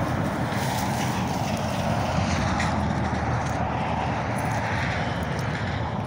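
Steady, continuous noise of freeway traffic, an even rush of tyres and engines with no single vehicle standing out.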